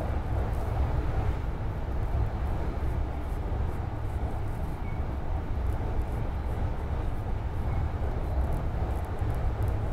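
Marine Liner rapid electric train running at speed across the steel truss of the Seto Ōhashi bridge, heard inside the carriage: a steady low rumble of wheels on rail.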